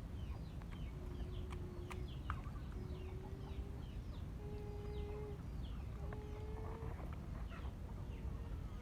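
Chickens calling: a run of short, high, falling chirps, with four drawn-out lower calls, over a steady low rumble.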